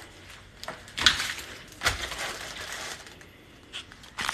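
Crinkling and clicking of plastic-wrapped frozen food being handled and packed into a freezer, with a few sharp knocks and rustling bursts, the loudest about a second in and around two seconds in.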